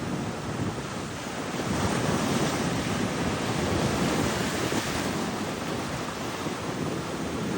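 Ocean surf washing up the beach, swelling and easing off, with wind rumbling on the microphone.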